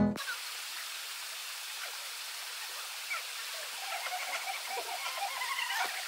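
Steady hiss of running water in the rock pools at the top of a waterfall, with faint short sounds over it from about halfway through.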